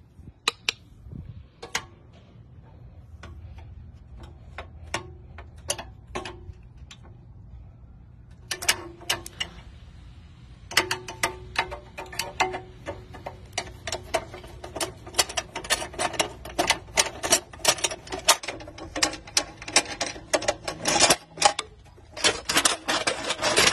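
Sharp clicks and taps from hands and tools working a steel wheel clamp: scattered at first, then rapid, dense clicking from about halfway through.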